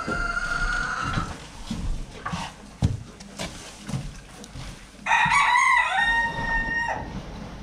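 A rooster crows once, about five seconds in, a call of roughly two seconds that bends up and then holds. A shorter fowl call comes at the start. Between them are footsteps, knocks and rustling as hay is carried across the barn floor and tossed down.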